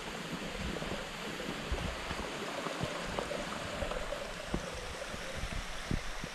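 A stream running: a steady, even rush of flowing water.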